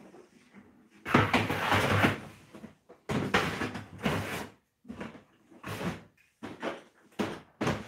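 Household objects being shifted on a low shelf under a counter: scraping and knocking as containers and stacked boards are moved about, in two longer scrapes of about a second and a half each, then a few shorter knocks.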